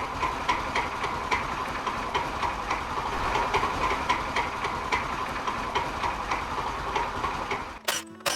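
Moped scooter running with a clattering rattle from its drive system, repeating two or three times a second: the drive-system fault whose cause is being hunted. Near the end the sound cuts off and chiming music starts.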